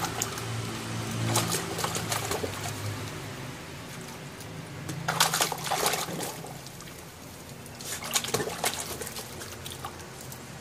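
Siberian Husky puppy splashing water in a plastic tub with its paws and muzzle, in three bursts: soon after the start, around the middle, and about three quarters through. A low steady hum runs underneath.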